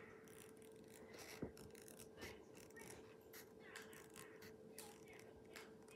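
Near silence with faint, irregular snips of scissors cutting a sheet of craft foam, over a faint steady hum.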